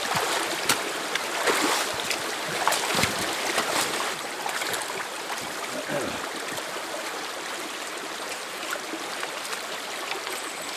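Creek water running steadily over rocks, with several sharp splashes and knocks in the first four seconds as rocks are handled and washed in the stream.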